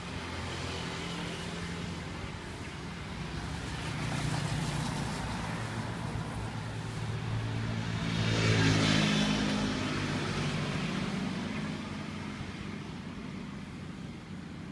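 Street traffic: engines and tyres of passing vehicles. One vehicle passes close, loudest about eight and a half seconds in, then fades away.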